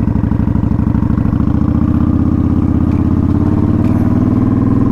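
Kawasaki Vulcan 900's V-twin engine running through a Vance & Hines aftermarket exhaust as the motorcycle is ridden, its pitch rising a little in the second half as it speeds up.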